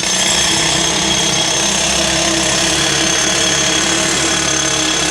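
Pneumatic jackhammer hammering steadily and loudly inside a chimney, starting abruptly.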